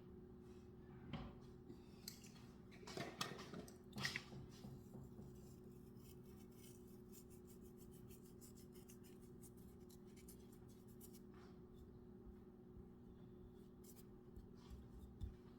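Mostly near silence with a faint steady hum, broken by a few soft rustling and clicking handling sounds in the first four seconds as parsley is added by hand, then faint light ticks.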